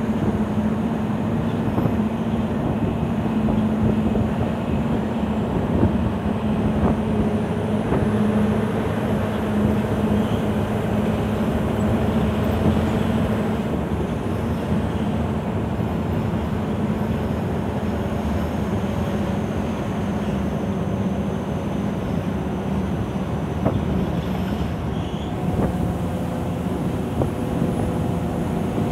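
Scania 164L 580's V8 diesel engine running on a downhill run, heard from inside the cab as a steady drone with road noise. Its note changes a little near the end.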